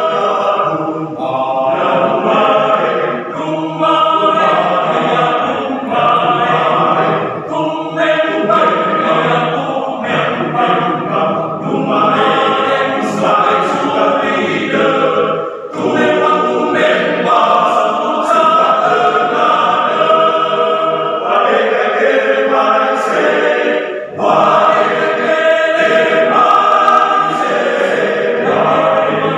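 Men's choir singing in parts, with short breaks between phrases about 16 and 24 seconds in.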